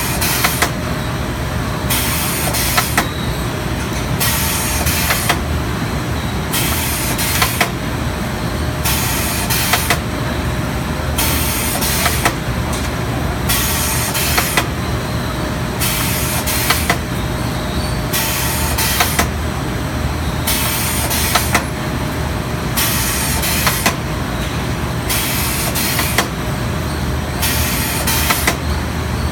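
Steen ST 828 drumstick deboning machine running in steady cycles: a constant low hum, with a burst of hiss and sharp clicks about every second and a half as each drumstick is stripped from its bone.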